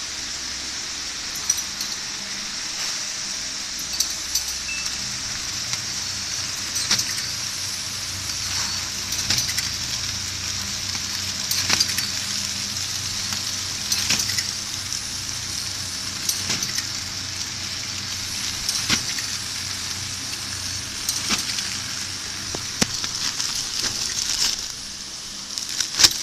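Automatic hamburger bun packing machine running: a steady hiss with a low hum under it, and a sharp clack about every two and a half seconds as the machine cycles.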